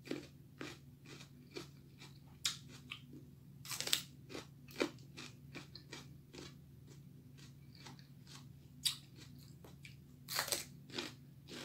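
Biting and chewing raw bell pepper: irregular crisp crunches, some louder bites about four seconds in and near the end, over a faint steady low hum.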